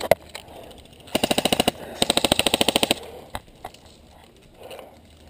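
Airsoft rifle firing two full-auto bursts, a short one about a second in and a longer one right after, at roughly sixteen shots a second, with a single click shortly after.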